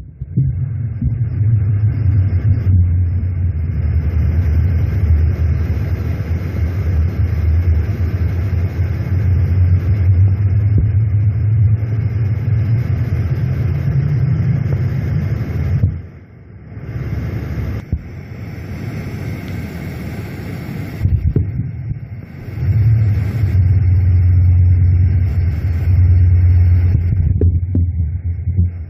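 Low, steady rumble picked up through a 50 mm borehole casing, which the recordists take for tunnel-digging machinery underground. It drops away briefly about 16 seconds in and again around 21 seconds, then comes back.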